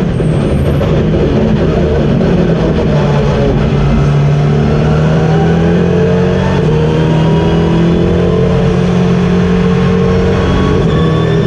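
KTM X-Bow GT4 race car's turbocharged four-cylinder engine heard from inside the cockpit, running hard under load; its pitch climbs slowly for several seconds and drops back near the end.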